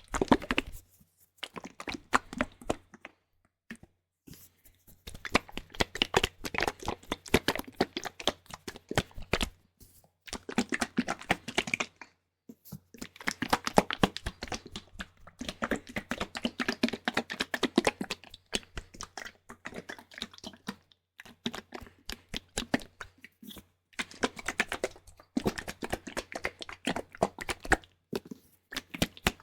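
Fingers scratching directly on the microphone (ASMR mic scratching): dense, close crackling in bursts of a few seconds, with short pauses between them.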